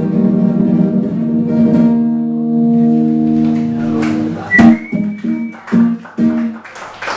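Nylon-string classical guitar strummed, ringing chords held for a few seconds, then a sharp accent with a held high note and a run of short, hard-struck chords spaced apart, ending the song.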